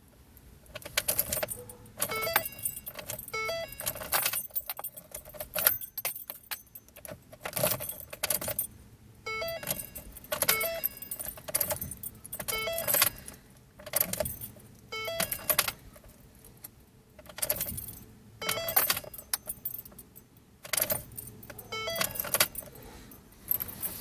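A bunch of car keys jangling in short bursts about every one to two seconds, with a metallic ringing, as the key is worked over and over in a 2009 Ford Focus that won't start. No engine running or cranking is heard.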